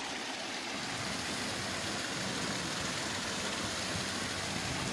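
Paddlewheel aerator churning the pond surface: a steady splashing hiss of thrown water that grows a little louder.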